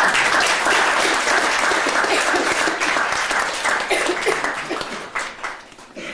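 Audience applauding, strong at first, then thinning out to scattered claps and dying away near the end.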